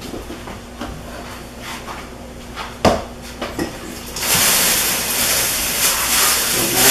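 A few light clicks and knocks of dishes on the counter, then a kitchen faucet turned on about four seconds in, its water running steadily into the sink.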